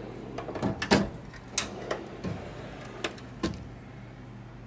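Steel tool chest drawers sliding and being shut and opened, giving a handful of sharp clunks and clicks. The loudest comes about a second in and the last just past three seconds.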